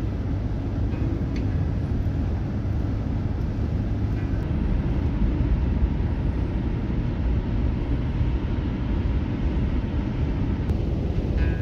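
Steady low road and engine rumble of a van driving at speed, heard from inside the cab.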